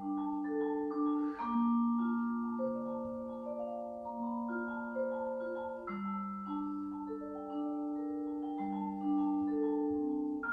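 Solo vibraphone played with mallets: single notes and chords struck one after another, each ringing on for a second or more so that they overlap.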